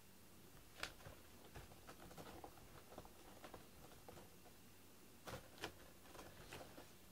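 Faint, irregular ticks and short scratchy rustles: a cat shifting about in its cardboard cat bed. The loudest clicks come about a second in and again near five and a half seconds.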